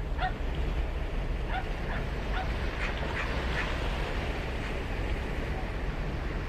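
Steady wash of ocean surf with a low wind rumble, and short animal calls repeated several times over the first few seconds.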